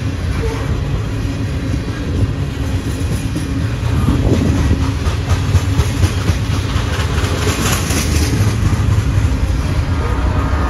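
Freight train of loaded tank cars rolling past, steel wheels rumbling and clicking over the rail joints, getting louder about four seconds in. Near the end the train's rear Canadian Pacific diesel locomotive comes by.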